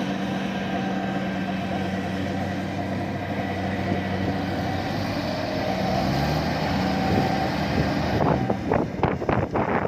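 Diesel engine of tracked farm machinery running steadily under load, its pitch lifting a little about six seconds in. Irregular rough bursts of louder noise come in near the end.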